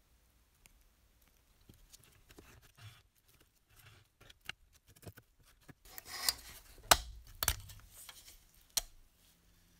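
Rusty metal parts of a clockwork toy locomotive being handled: light scrapes and small clicks, then three sharp metallic knocks in the second half.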